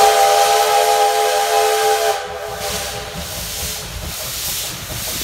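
Steam locomotive whistle blowing a loud, steady blast that cuts off about two seconds in. It is followed by a steady hiss of escaping steam as the engine runs.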